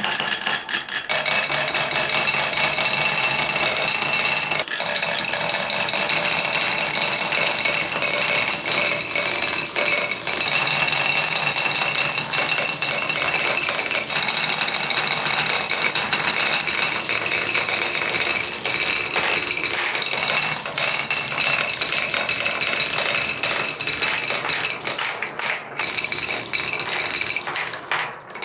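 Many glass marbles rolling fast over the ribbed plastic rails of a wooden marble run, making a loud, dense, continuous rattle with a steady buzzing pitch from the ribs. The rattle dies down near the end.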